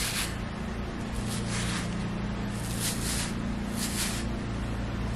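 Soft swishes of a comb drawn through damp hair, about five strokes roughly a second apart, over a steady low hum.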